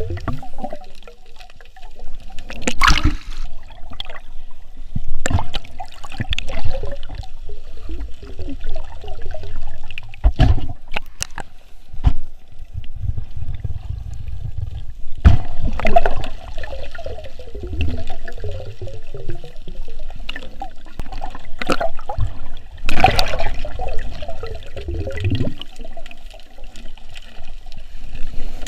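Water sloshing and gurgling around a snorkeller, with scattered sharp knocks and clicks.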